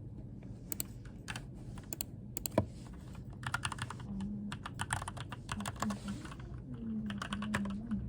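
Typing on a computer keyboard: scattered keystrokes and several quick runs of rapid clicking, with a single sharp knock about two and a half seconds in.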